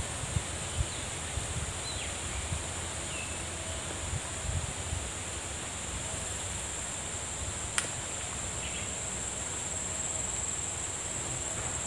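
Insects droning steadily at a high pitch, with wind buffeting the microphone in the first few seconds and a single sharp click about two thirds of the way through.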